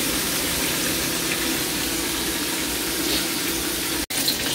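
Tilapia pieces frying in oil in a nonstick pan: a steady sizzle. It cuts out abruptly for an instant about four seconds in, then resumes with more crackling.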